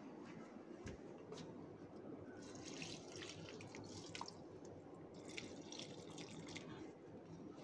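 Water poured from a small container into the soil of a potted plant, faintly trickling and dripping in two short spells, about two and a half seconds in and again about five and a half seconds in.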